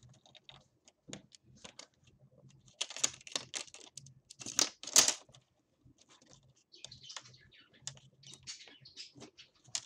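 Plastic screen bezel of a Lenovo IdeaPad S145 being pressed by hand onto the display lid: irregular small plastic clicks and scrapes, loudest about three and five seconds in. The stiff bezel is not yet snapping into place.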